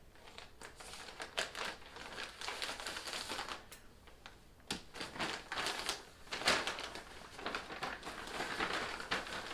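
Packaging being torn open and handled by hand: irregular crinkling, rustling and small clicks and taps as a shipping package is opened.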